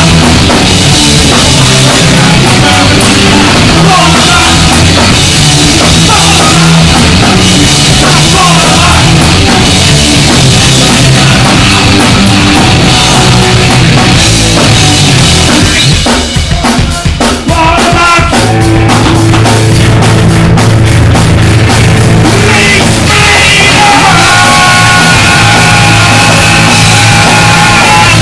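Live punk band playing loud: distorted electric guitar, bass guitar and drum kit. About two-thirds through, the sound briefly thins to separate drum hits before the full band comes back in.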